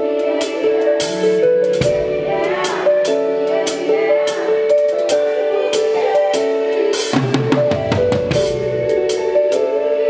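Live band playing: a drum kit keeping a steady beat with kick, snare and cymbal strikes, over bass guitar and held chords.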